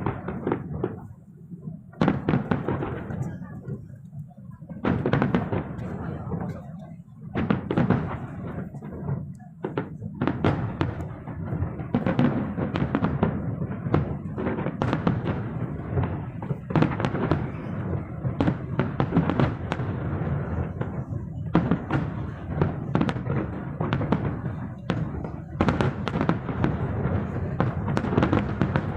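Fireworks going off. A few separate bangs come in the first several seconds, then from about ten seconds in a near-continuous barrage of bangs and crackles follows.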